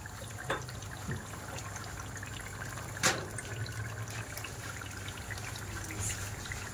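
Pot of soaked dried white beans bubbling at a boil in water, a steady gurgle over a low hum, with a sharp click about three seconds in.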